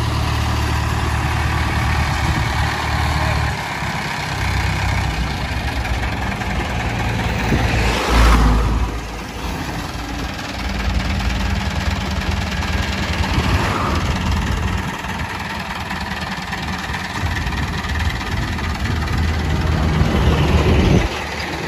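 Diesel engine of an Indo Power hydra pick-and-carry crane running steadily while it carries a suspended dumper body. A louder rush of noise comes about eight seconds in, and the engine note rises near the end.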